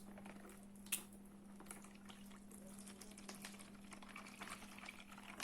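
Kefir being poured into a mixing bowl, a soft liquid pouring sound, with a sharp click about a second in, over a steady low hum.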